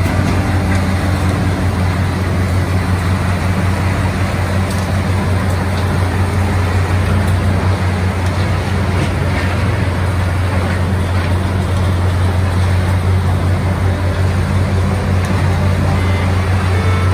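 Heavy wood-processing machinery running steadily with a loud, deep drone, with a few faint ticks over it.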